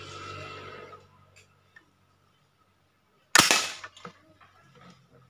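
Home-made bolt-action PVC toy gun firing a single sharp shot about three and a half seconds in, with a short fading tail. Before the shot, a steady hum fades away within the first second.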